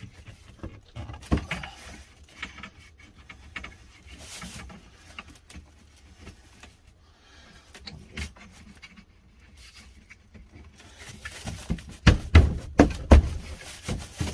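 Greenhouse shelving parts being handled and fitted together, with light clicks and rattles, then a run of about half a dozen loud knocks near the end as a piece is knocked into place.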